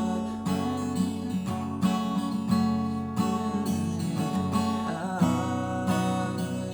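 Acoustic guitar strumming chords as accompaniment between sung lines, with a chord change about five seconds in.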